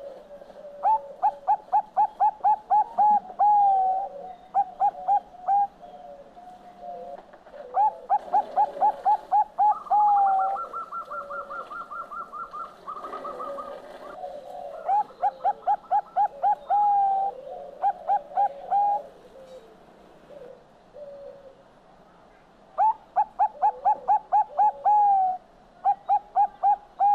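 Zebra dove (perkutut bangkok) singing: four phrases of rapid staccato coos, each closing on a longer drawn-out note and followed by a shorter burst of coos. A faster, higher trill runs for a few seconds about ten seconds in, and softer cooing fills the gaps between phrases.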